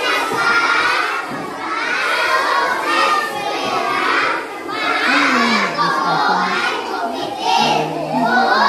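A crowd of schoolchildren shouting and cheering together, many high voices overlapping.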